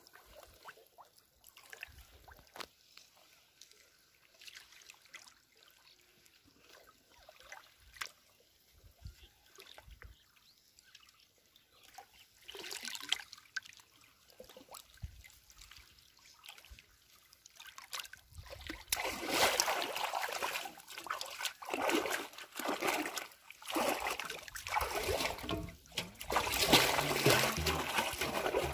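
Pond water sloshing and splashing as a large aluminium basin is worked through it, dipped and tipped out again and again. It is faint at first, with small splashes, then grows loud about two-thirds of the way in, with a splash roughly every second.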